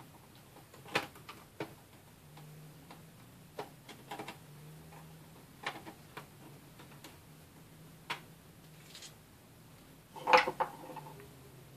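Small screwdriver turning screws out of a laptop's plastic hard-drive cover: scattered light clicks and ticks of the metal tip and screws. About ten seconds in comes a louder clatter of several quick knocks.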